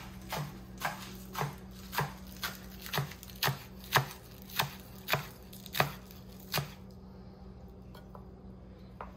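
A chef's knife chopping celery on a wooden cutting board, with about a dozen even knocks roughly two a second. The chopping stops about two-thirds of the way through.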